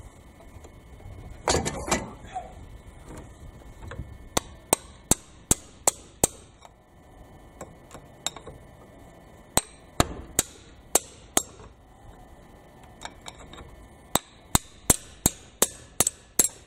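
Ratchet wrench working cylinder head bolts loose: runs of sharp metallic clicks, about two or three a second, with a louder scuffing clatter about two seconds in.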